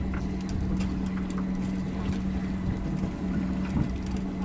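Fishing boat's engine running at a steady hum, with a low rumble and scattered light clicks over it.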